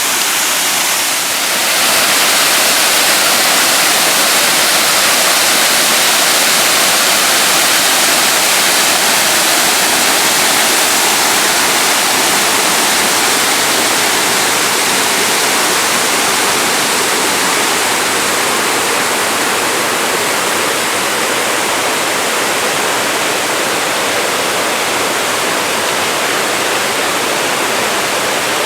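Waterfall pouring hard: a loud, steady rush of falling water that swells slightly about two seconds in and then holds even.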